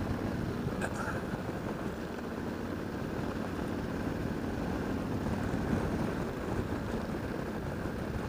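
Motorcycle being ridden at a steady road speed: engine and wind noise, even throughout, with a short click about a second in.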